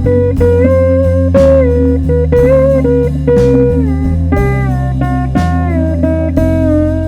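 Chicago blues band music in an instrumental break: a lead guitar plays sustained notes that bend and slide in pitch over a bass line and drums that hit about once a second.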